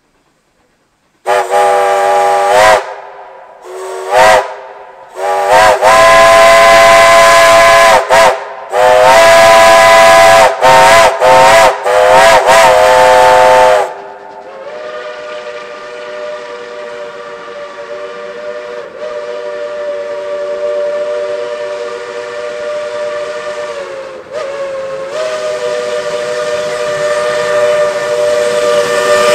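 Narrow-gauge steam locomotive chime whistle blowing a series of long and short blasts, several tones sounding together. From about halfway it drops to a quieter, steady whistle held to the end.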